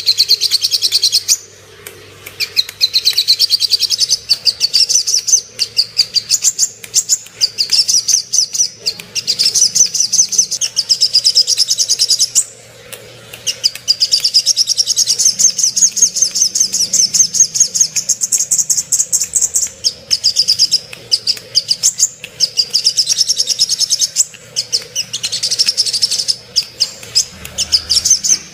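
Sogok ontong (sogon) bird singing: long runs of rapid, high-pitched chattering trills, broken by short pauses about a second and a half in and near halfway. This is the excited song used as a lure call to provoke caged birds of the same kind to sing.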